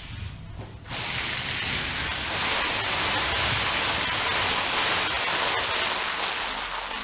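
A loud, steady hiss that starts abruptly about a second in and fades away near the end.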